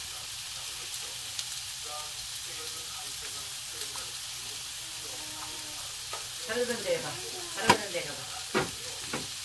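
Julienned potato and onion sizzling steadily in a hot frying pan as they stir-fry, with two sharp knocks near the end.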